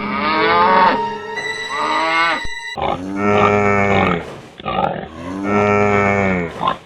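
Music with a falling, sliding tone, then two long, low drawn-out calls about two and a half seconds apart, each lasting about a second.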